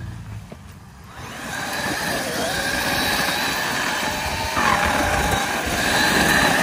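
Traxxas X-Maxx RC monster truck's brushless electric motor whining under throttle, getting louder from about a second in. Its pitch dips and climbs again around the middle as the truck slides and spins its wheels on hard, dry dirt.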